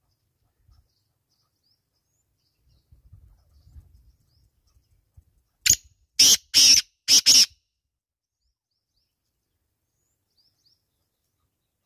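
Male black francolin calling once, about halfway through: a short note, then two harsh doubled notes, loud and close. Faint chirps of small birds sound in the background.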